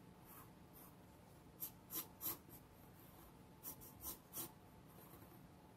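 Pencil strokes on drawing paper, faint. There are three short strokes about one and a half to two and a half seconds in, then three more around four seconds.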